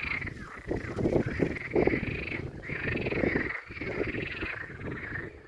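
A continuous chorus of animal calls wavering around one high pitch, with an irregular low rushing noise surging in gusts beneath it.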